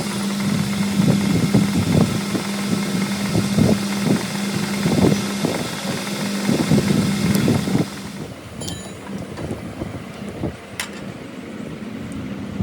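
An engine running with a steady hum and irregular low thumps; the hum stops about eight seconds in, leaving quieter background noise with a few light clicks.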